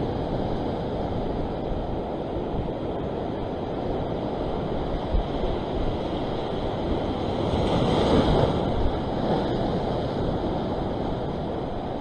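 Ocean waves surging and breaking against a rock ledge, a steady wash with one louder wave breaking about eight seconds in. Wind buffets the microphone.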